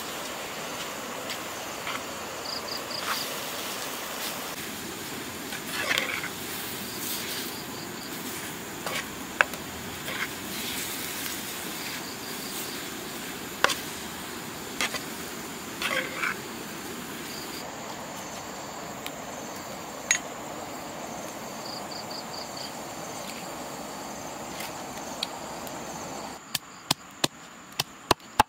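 Mushrooms sizzling as they fry in a pan over a wood fire, with occasional clicks of the spatula against the pan. Near the end a pestle starts pounding chilies in a clay mortar, about two strikes a second.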